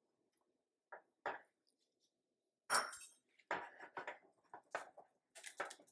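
Wire whisk clinking and scraping against the sides of a stainless steel saucepan while stirring thick grits, in short, irregular strokes with quiet gaps; the sharpest clink comes about three seconds in.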